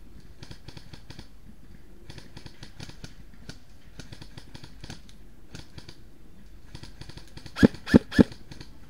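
Three quick airsoft rifle shots near the end, sharp knocks fired a fraction of a second apart, over faint rustling and ticking of movement through woodland undergrowth.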